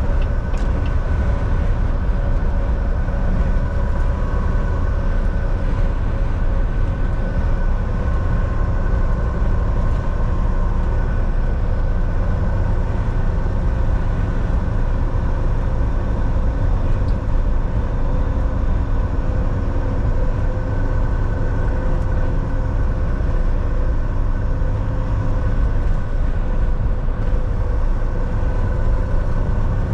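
Volvo semi truck driving at a steady speed: a constant low engine and road rumble with a steady drivetrain hum.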